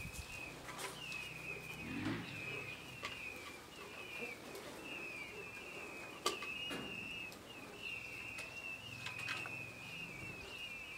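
Peachicks peeping: a steady run of short, high, wavering cheeps repeated all through. A few sharp clicks and scuffs, the loudest about six seconds in.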